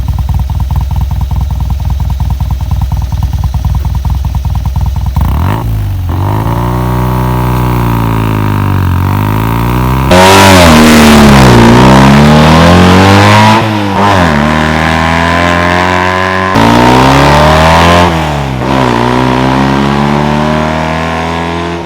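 Vintage Fiat 500 Abarth replica's air-cooled two-cylinder engine idling steadily, then revved up and back down several times, the pitch rising and falling with each rev.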